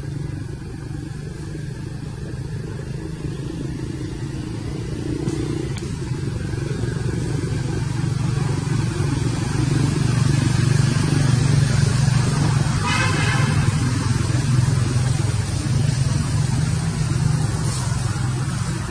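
Low motor hum that grows louder toward the middle and eases off near the end. A short high-pitched call cuts in about 13 seconds in.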